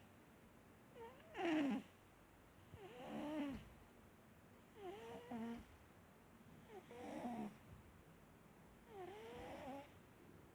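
Domestic cat snoring: about five wavering snores, one on each breath roughly every two seconds, the first, about a second and a half in, the loudest.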